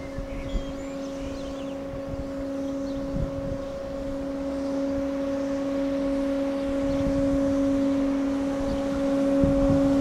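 ÖBB regional express passenger train, CityShuttle control car leading, rolling slowly into the station: a steady hum over a low rumble, growing louder as the train comes closer.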